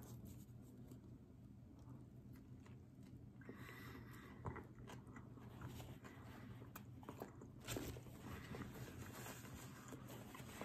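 A person biting into and chewing a fried chicken sandwich: faint soft crunches and mouth sounds, with a couple of slightly louder crunches about four and a half and almost eight seconds in.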